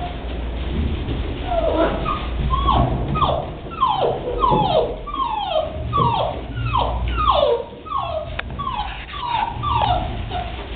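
One-month-old English pointer puppy whimpering: a steady run of short, high whines, each falling in pitch, about one and a half a second, beginning about a second and a half in.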